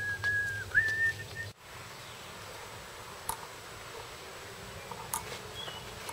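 A person whistling a few long, nearly level notes, cut off about a second and a half in. Then quiet outdoor background with a few faint, short bird chirps.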